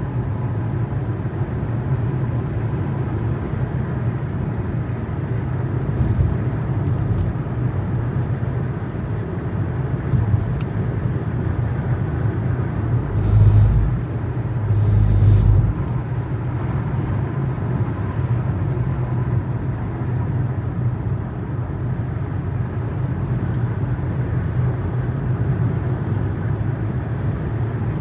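A car driving along, with a steady low road and engine rumble. About halfway through come two louder low swells, each about a second long.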